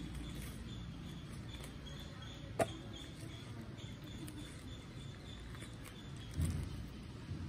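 Ripe jackfruit being pulled apart by hand, the bulbs tearing free of the stringy fibres with faint sticky rustling. A sharp click comes about two and a half seconds in, and a low thump a little past six seconds.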